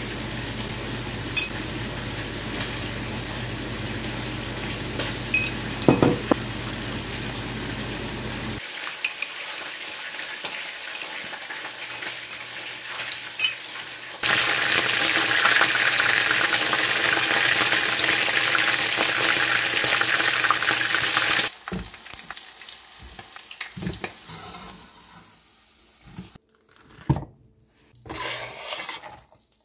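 Cooking sounds: a metal spoon clinking and stirring in a ceramic ramekin while a sauce is mixed, then a stretch of steady sizzling from a frying pan that starts and stops abruptly, then scattered clinks and scrapes of utensils on cookware.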